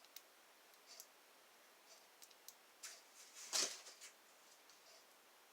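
Faint small metallic clicks from a Brinks three-wheel combination padlock being worked with a guitar-string wire, with one louder brief scrape about three and a half seconds in.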